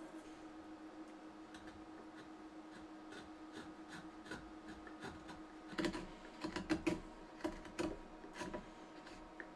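Sheath knife paring the sharp edges off the end of an oak mallet handle: a run of short, crisp cuts starting about halfway through, over a faint steady hum.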